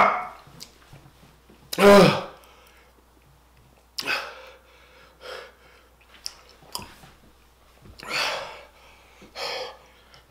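A man's short, pitched pained cry about two seconds in, then sharp, breathy puffs of air at about four, eight and nine and a half seconds: his reaction to the burn of very spicy fried chicken.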